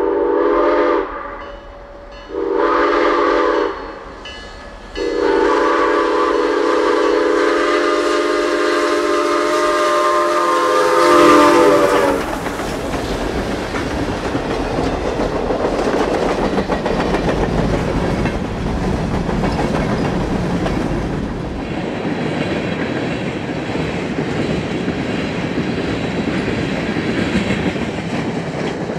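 Steam locomotive 6988's whistle blowing three blasts, long, short and long, the last growing louder near its end as the engine comes by. Then the train rolls past with a steady rumble and clatter of wheels.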